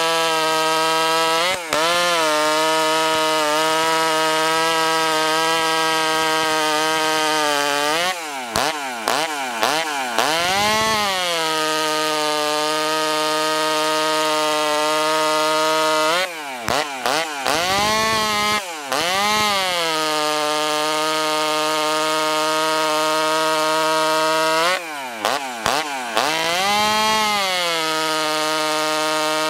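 Ported, alcohol-burning Poulan 2375 Wild Thing two-stroke chainsaw running at full throttle in a cut through a log, its engine note steady under load. Three times, about eight seconds apart, the saw comes free of the wood. Its pitch dips and rises as the throttle is blipped, then it revs up and pulls down again as the chain bites back into the wood.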